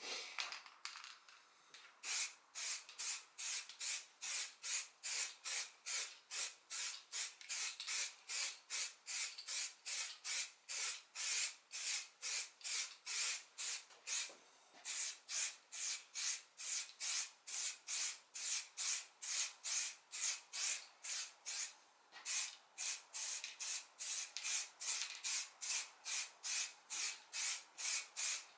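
Primer being sprayed onto a car bumper in short, even hissing bursts, about two a second, pausing briefly twice: the first coat of primer going on over filler repairs.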